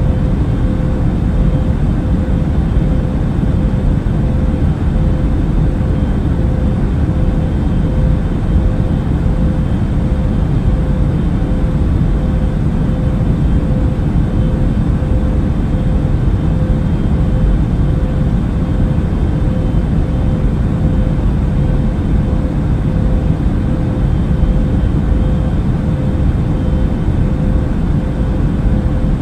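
Steady in-flight airplane cabin noise: an even low rush of engines and airflow with a constant hum tone running through it, unchanging throughout.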